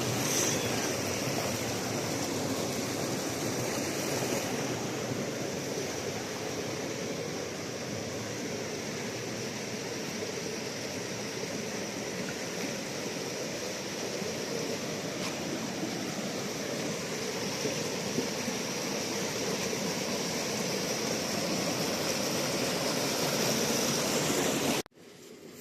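Water rushing and churning steadily, cut off suddenly near the end.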